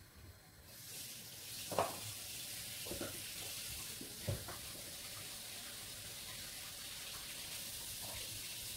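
Fish pieces on a baking tray sizzling in a hot oven: a steady hiss that starts just under a second in, with a few short knocks around two, three and four seconds in.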